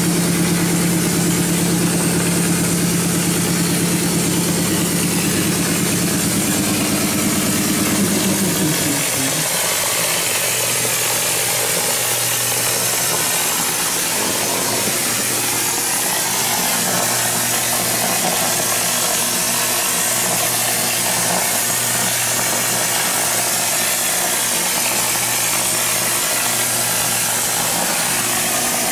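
GFRC premix spray rig running steadily: a motor's even hum over a constant hiss of air. About nine seconds in the hum drops to a lower, quieter pitch and settles there.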